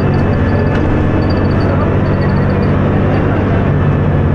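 Dennis Arrow single-deck bus engine running steadily under way, a loud low drone. Short runs of faint high-pitched chirps or squeaks come and go over it.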